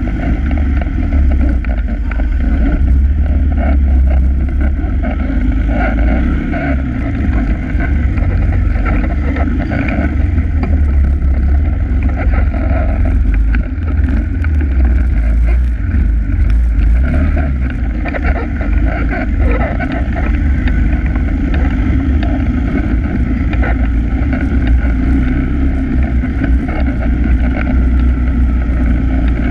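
ATV engine running as the quad rides a dirt trail, its pitch rising and falling with the throttle several times, over a heavy low rumble of wind and vibration on the bike-mounted microphone.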